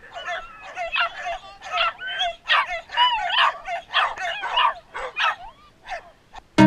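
Small terrier on a leash yipping and whining in quick, high-pitched calls, about three or four a second, eager to set off running. The calls thin out and stop near the end.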